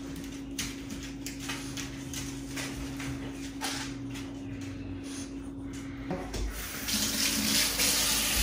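Kitchen sink faucet running, the water noise swelling about seven seconds in. Underneath are a low steady hum and a few faint light taps.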